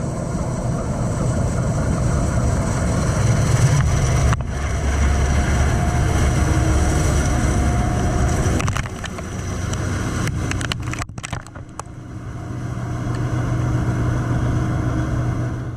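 Heavy harvest machinery running steadily with a deep engine rumble. The sound breaks off sharply about four seconds in and dips twice in the second half, with a few clicks in between.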